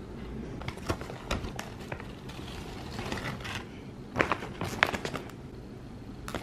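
Clear plastic bag of tempe chips crinkling and rustling as a hand handles it and the chips, with irregular sharp crackles, the loudest a cluster about four to five seconds in.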